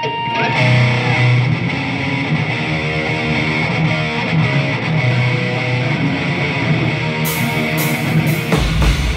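A live rock band starts a song: distorted electric guitar plays the opening riff, cymbal crashes come in near the end, and the kick drum and bass join just before the end.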